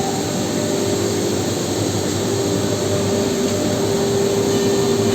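Steady drone of workshop air machinery, a blower running at constant speed with a steady humming tone over a rushing noise.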